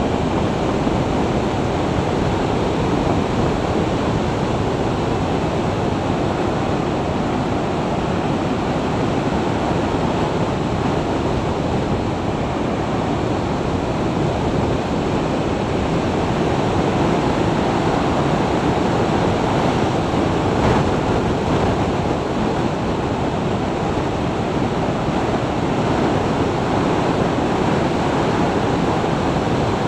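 Steady wind noise on a motorcycle-mounted action camera's microphone at about 55 to 60 mph, an even rush with no distinct engine note.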